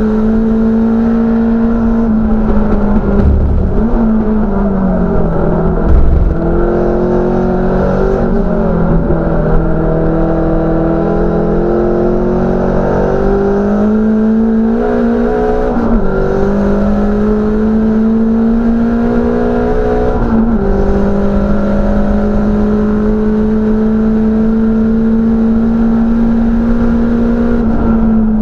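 The engine of a small manual-gearbox race hatchback, heard from inside its cabin, running hard under racing load. Its pitch dips for a corner a few seconds in and climbs back, with short breaks at gear changes about halfway through and a few seconds later. There is a loud thump about six seconds in.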